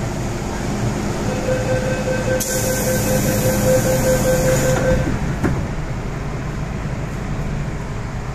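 MTR M-Train electric multiple unit running: a steady rumble with a held whine from about a second in, and a hiss that starts about two and a half seconds in and cuts off suddenly near five seconds, followed by a single click.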